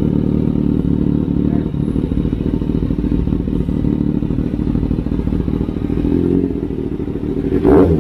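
Kawasaki ZX-6R inline-four sport-bike engine idling steadily through an Austin Racing titanium and carbon slip-on exhaust, with a short throttle blip near the end.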